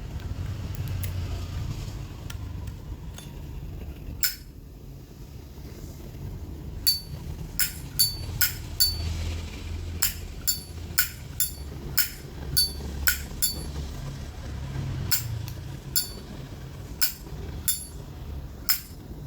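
Vintage Zippo lighter being worked by hand: its hinged metal lid flicked open and snapped shut over and over, giving sharp metallic clinks about two a second from about seven seconds in, with a few pauses. A steady low rumble lies underneath.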